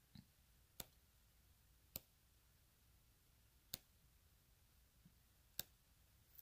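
Pages of a thick 6x6 patterned paper pad turned one at a time, each turn giving a short, sharp click, four in all at gaps of one to two seconds, against near silence.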